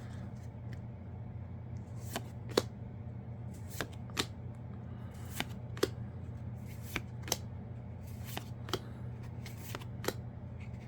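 Yu-Gi-Oh trading cards from a freshly opened booster pack being flipped through one at a time: short, sharp card snaps and taps at uneven intervals, roughly one every half second to second, over a steady low hum.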